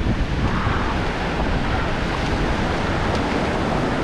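Ocean surf washing onto a beach, with wind buffeting the microphone: a steady rushing noise.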